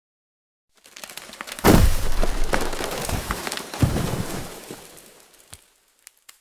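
Falling-tree sound effect: wood crackling briefly, then a heavy crash with branches breaking, a second heavy thud a couple of seconds later, dying away into a few small snaps.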